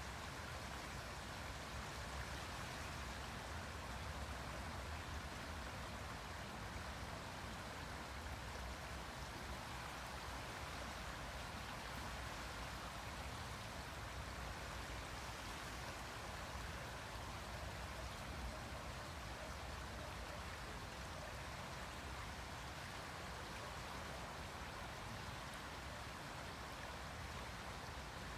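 River water flowing, a steady even rush of water with no breaks.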